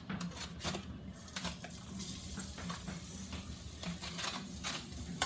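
A few small pieces of food sizzling in hot oil in a wok, with a metal spatula scraping and knocking against the pan in short, irregular strokes.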